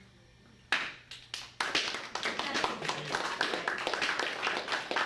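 Small classroom audience applauding: a few scattered claps start less than a second in, then from about a second and a half the whole group joins in with dense, steady clapping.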